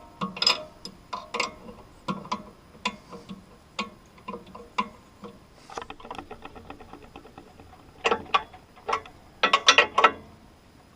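A wrench tightening a nut on the swing blade mill's slab-bar mount, metal on metal. It gives sharp ticks and clicks, with a quick even run of small clicks about six seconds in and louder metal clinks near the end.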